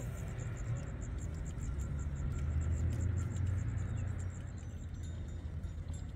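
Low rumble of a distant passing vehicle, swelling through the middle, under an insect's high chirping, about five pulses a second, which stops about five seconds in.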